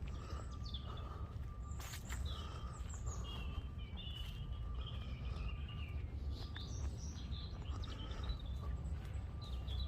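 Small birds chirping and twittering in short, repeated phrases over a steady low outdoor rumble, with one sharp click about two seconds in.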